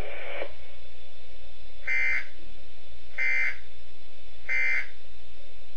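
Three short, buzzy digital data bursts, just over a second apart, over a steady low hum: the SAME alert code of a weather radio broadcast. The bursts are short enough to be the end-of-message code that closes the monthly alert test.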